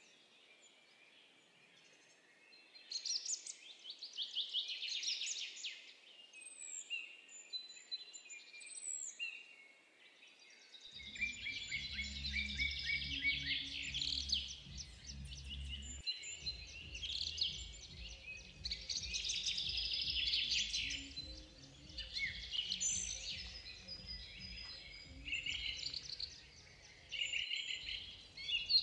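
Many small birds chirping and chattering in quick, busy runs, with gaps between bouts. A low steady hum comes in about a third of the way through, breaks off briefly, and then carries on underneath.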